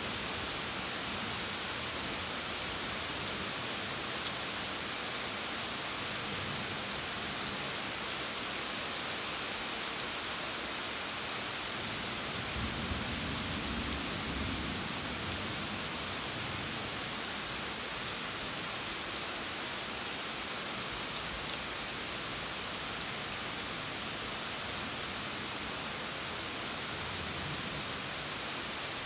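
Steady rain falling in a thunderstorm, with a soft low rumble of thunder about halfway through that lasts two or three seconds.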